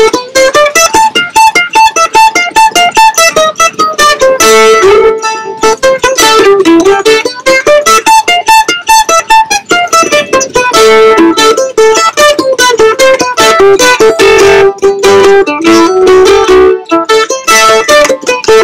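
F-style mandolin played with a pick: a fast melody of quickly picked notes.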